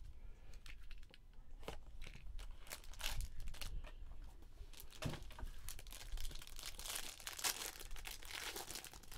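A cardboard box of Premier hockey cards being pulled open by hand, then a foil card pack crinkling and tearing open, in irregular rustles and clicks.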